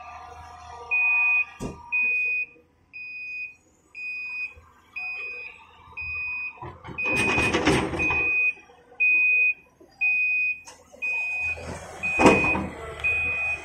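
Reversing alarm on a Volvo 460 tipper truck, beeping steadily about once a second on a single high tone as the truck backs up to be loaded. About seven seconds in, and again near twelve seconds, loads of soil and rock drop into the steel tipper body from the Volvo excavator's bucket.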